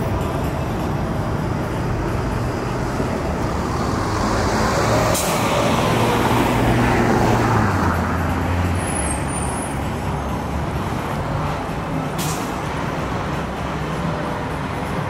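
A city bus passing with its engine running, among streetcar and downtown traffic noise, louder as it goes by about six to eight seconds in. There are two short air-brake hisses, about five seconds in and again near the end.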